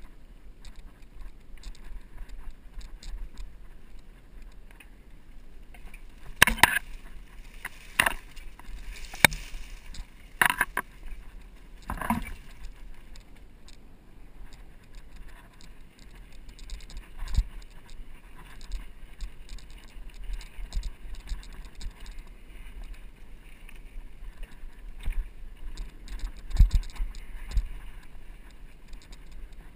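Mountain bike ridden over a rough dry dirt trail, with the tyres crunching and the bike rattling. Four sharp clanks come between about six and twelve seconds in, and there are dull low thumps later.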